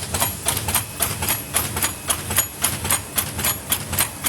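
Leader PL-145 paper lid machine running, its mechanism clacking in a fast, even rhythm of about four sharp clicks a second over a low mechanical hum.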